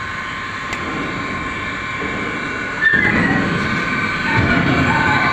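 TIG (argon) welding: a steady high-pitched whine with a rougher hiss underneath that becomes louder about three seconds in.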